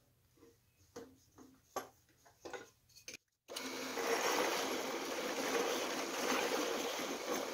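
A few light knocks and clicks as the workpiece is set and clamped, then about three and a half seconds in a drill press starts up and its bit bores into wood with a steady, even whirring noise.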